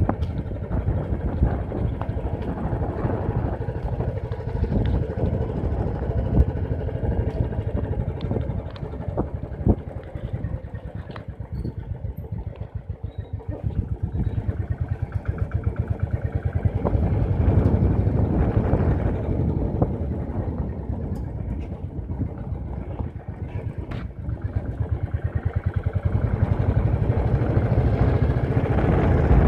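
Motorcycle engine running while under way, its firing pulses steady. The engine eases off about halfway through and then picks up again.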